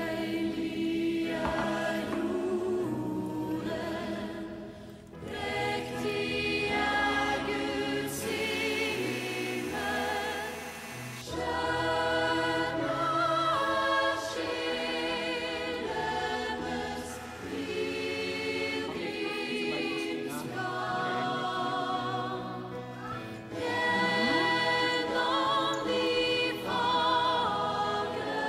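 Background music: a choir singing in phrases, with wavering held notes.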